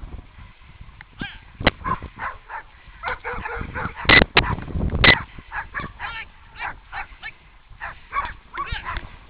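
Sled dogs yelping and whining, a rapid, uneven run of short high yips with the loudest ones a little after four and five seconds in.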